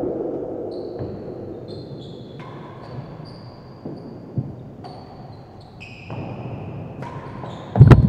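Real tennis rally in an echoing indoor court: the ball is struck and bounces, with a sharp knock about four seconds in and a loud impact near the end. Faint high steady tones run through it, shifting in pitch in steps.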